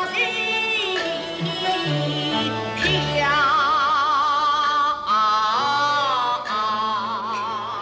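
A male Xi opera (Wuxi opera) singer singing a slow, drawn-out aria line in the Binbin style, holding long notes with a wide vibrato, over instrumental accompaniment.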